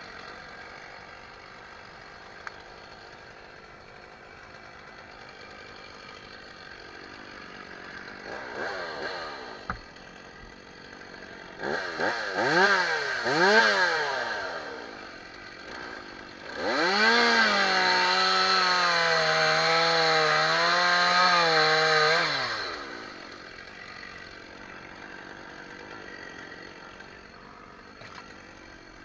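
Stihl chainsaw idling, blipped up briefly three times, then held at full throttle for about six seconds with its pitch wavering under load, as in a cut, before dropping back to idle.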